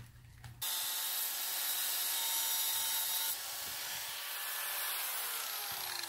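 Grinder cutting against steel, grinding the peened-over pin heads off a link of a motorcycle drive chain so the pins can be pushed out. It starts suddenly about half a second in and runs steadily, its tone changing a little past halfway.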